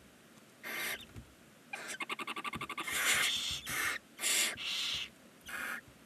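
Barn owl chicks giving harsh, hissing begging calls: about six short hisses, one of which breaks into a rapid stuttering rattle about two seconds in.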